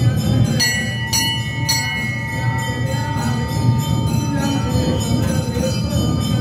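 Temple bells ringing during puja: a brass hand bell jangling steadily at about four strokes a second, and a larger bell struck three times about half a second apart near the start, its clear tone ringing on for a few seconds.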